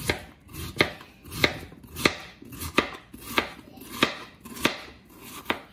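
Kitchen knife slicing raw potato into thin strips on a plastic cutting board: an even rhythm of about nine strokes, roughly one and a half a second, each a short swish through the potato ending in a knock of the blade on the board.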